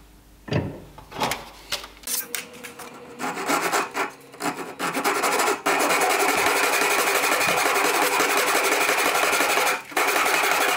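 Pull saw cutting through a thin wooden dowel: a few knocks and short scrapes at first, then from about halfway in a steady run of quick saw strokes with one brief break near the end.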